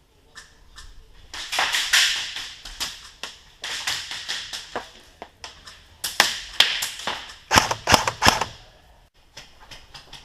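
Airsoft guns firing: rapid trains of sharp clacks and snaps, mostly in two heavy volleys about two seconds in and about seven seconds in, with scattered single shots between.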